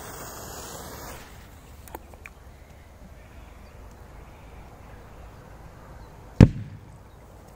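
Lit fuse of a green P150 firecracker hissing briefly, then after a long pause a single loud bang about six seconds in as the firecracker explodes in the bog water, with a short low rumble after it.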